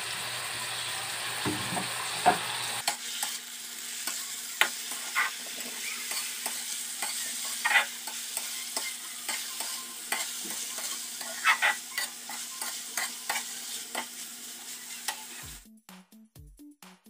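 Tofu cubes frying in soy sauce in a wok, a steady sizzle with a metal spatula scraping and clacking against the pan as they are stirred. The frying sound cuts off near the end.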